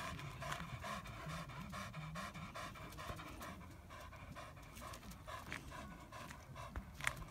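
Springer spaniel panting, quick and even, with its mouth open and tongue out.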